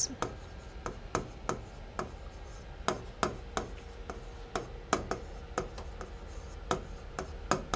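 Pen tapping and scraping on the glass screen of an interactive display board during handwriting, with sharp, irregular clicks about two a second.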